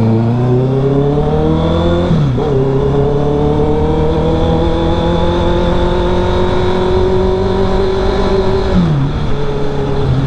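Honda CB650R inline-four through an aftermarket R11 Villain full exhaust, really loud, accelerating under way. The pitch climbs steadily and drops sharply at two upshifts, about two seconds in and near the end.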